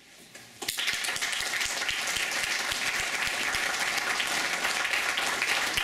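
Audience applauding, starting suddenly about a second in and holding steady.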